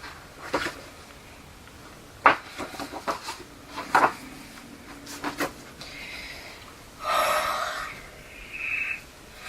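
Handling noises from working on a paper planner by hand: a few sharp taps and clicks, the loudest about two and four seconds in, and a short burst of rustling about seven seconds in.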